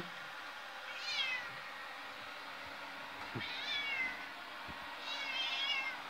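Domestic cat meowing three times, high-pitched calls about a second in, in the middle and near the end, over the steady hum of a running robot vacuum cleaner.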